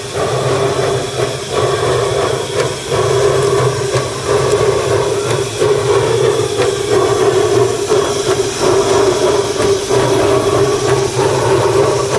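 Narrow-gauge steam locomotive venting steam with a steady loud hiss, with a few faint knocks from the engine.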